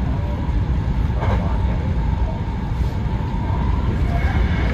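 Hankyu Kobe Line electric train running, heard from inside the front car: a steady, dense rumble with faint steady tones above it.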